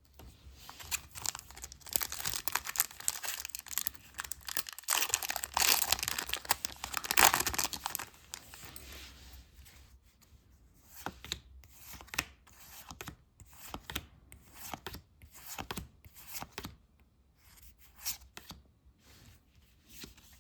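Foil wrapper of a Pokémon card booster pack being torn open and crinkled for the first several seconds. After that, cards are slid one by one through the hand, with a short swish about once a second.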